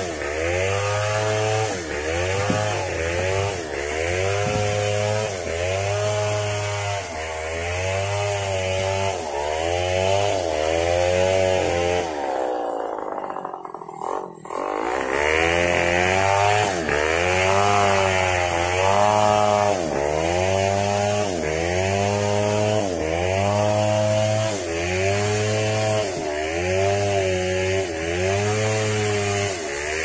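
Stihl 070 chainsaw running under load while ripping a log, its engine pitch rising and falling in a steady rhythm about once a second. About halfway through, it briefly drops away, then picks up again.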